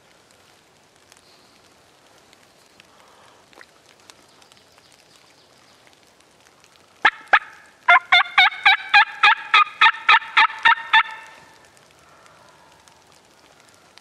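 Wild turkey yelping: a loud series of about fifteen short, sharp yelps at about five a second, starting about seven seconds in and stopping a few seconds later.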